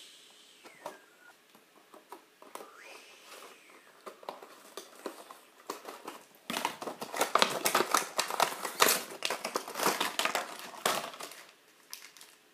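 Clear plastic wrapping around a toy pony being crinkled and torn open by hand. A few soft handling clicks come first, then a dense run of loud crinkling from about six and a half seconds in, ending about a second before the end.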